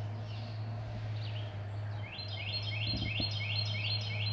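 A songbird singing a quick repeated phrase of rising notes, about three a second, starting about halfway through, over a steady low hum.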